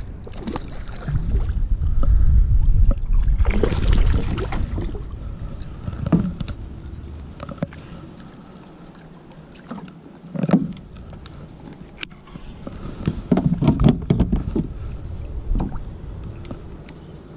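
Water splashing right beside a plastic fishing kayak as a just-released largemouth bass swims off, with a low rumble in the first few seconds. Then come scattered knocks and rustles of fishing gear being handled on the kayak deck.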